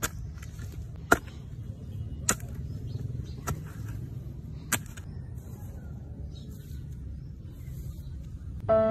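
Hand hoe chopping into soil, five sharp strikes about a second apart as a small hole is dug. The strikes then stop, leaving a steady low rumble.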